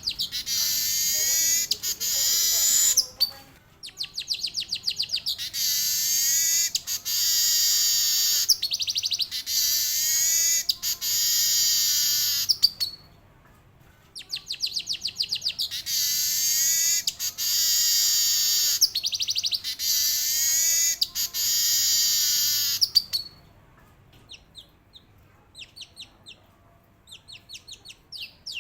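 Male weaver bird (manyar) singing: long, loud phrases of very rapid, buzzy, high-pitched trills, each lasting several seconds, broken by a short pause about halfway through, then a few sparse, quieter ticking notes near the end.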